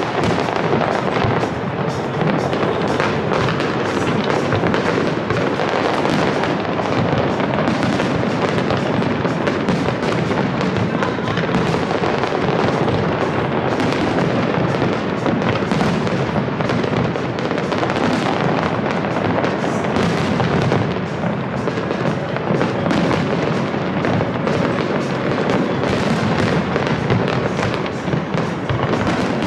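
A fireworks display: many aerial shells bursting in quick succession, a dense, continuous run of bangs and crackles.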